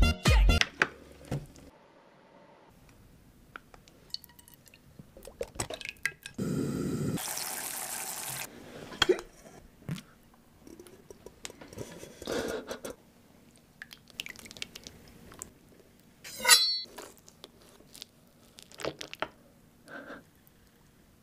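Kitchen sounds of a giant hamburg steak being unmolded and cut: scattered clinks, taps and knocks of a steel bowl, utensils and a plate, with about two seconds of steady liquid noise a third of the way in. A sharp, ringing clink about three quarters of the way in is the loudest sound.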